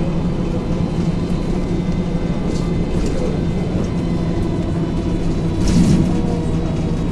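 Heard from inside a LiAZ-677M city bus on the move: the engine drones steadily under road noise, with one brief louder burst about six seconds in.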